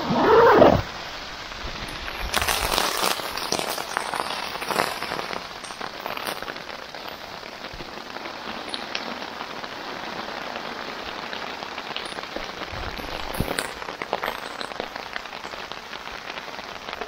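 Steady rain on a tarp overhead, with individual drops ticking throughout and a heavier spell about two to three seconds in. A brief loud sound that rises and falls in pitch comes right at the start.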